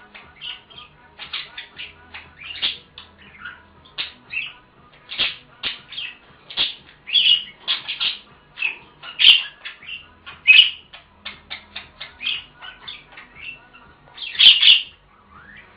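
Pet budgerigars chattering: a quick, unbroken run of short chirps and squawks, with louder calls scattered throughout.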